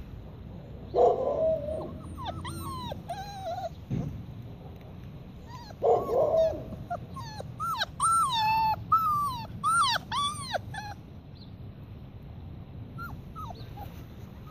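Alaskan malamute puppies giving short barks about a second in and again around six seconds in. Each bark is followed by a run of high, rising-and-falling whines and yips, with a few faint ones near the end.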